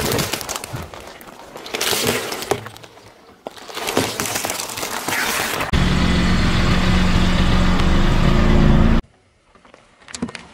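Things crushed one after another under a car tyre: eggs and their shells cracking and crunching at the start, then more bursts of cracking and breaking. Past the middle comes a loud steady low hum for about three seconds that stops abruptly, and near the end a few sharp cracks as a wooden toy is run over.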